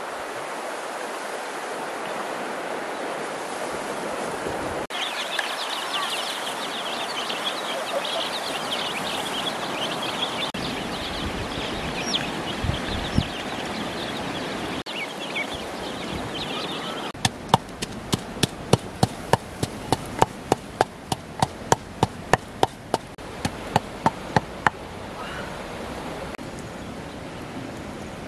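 Even outdoor hiss at first. From about five seconds in, chicks and ducklings peep over it for some twelve seconds. Then comes a run of sharp, evenly spaced knocks, about three a second, lasting around seven seconds.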